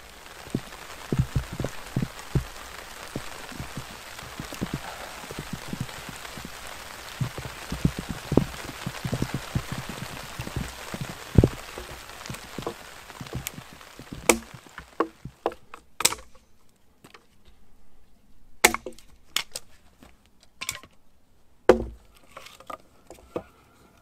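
Wood cracking and knocking. For about the first half, a dense run of knocks and snaps sits over a steady rustling hiss. After that come sharp single cracks and thuds about once a second, with quiet between.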